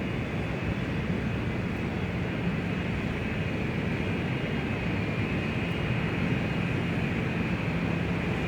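Large-airport exterior ambience: a steady, even rumble and hiss of aircraft engines, with faint thin high tones running through it.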